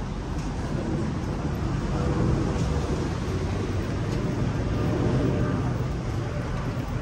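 Riverboat engine running with a steady low drone, under an even rush of wind and water noise.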